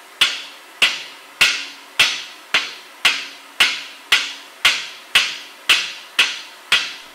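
Blacksmith's hammer striking the hot end of a steel rod on a heavy steel I-beam used in place of an anvil. The blows come in a steady rhythm of about two a second, thirteen in all, each with a short ring.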